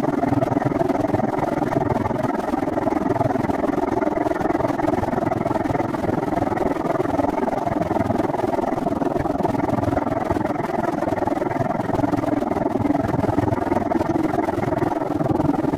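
Steady rushing noise of a moving bicycle: wind on the microphone and tyres rolling on pavement, unchanging throughout.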